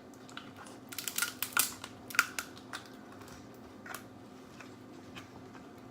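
Scattered sharp clicks and cracks of seafood-boil food and shells being handled and broken at the table, thickest about a second in and thinning out toward the end.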